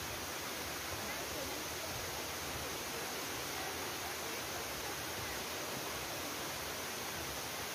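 Waterfall: water cascading down a sloping rock face in a steady, unbroken rush.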